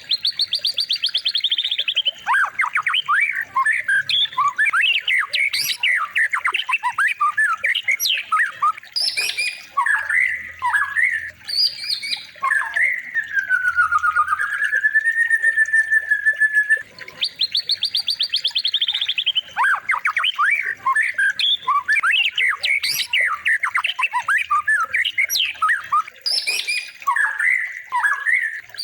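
Looped recording of songbird song used as a shama training track: a rapid high trill, then fast varied whistled phrases and a long slurred whistle that dips and levels off. The same sequence starts over about 17 seconds in.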